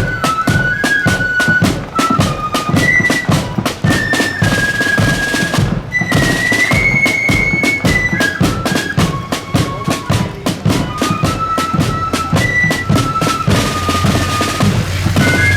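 Marching flute band playing a tune in unison, the flutes carrying a stepping melody over rapid snare drum rolls and a steady bass drum beat.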